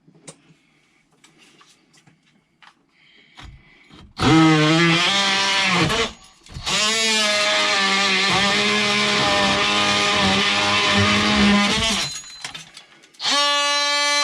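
A few faint clicks, then background guitar music starting about four seconds in, with two short breaks.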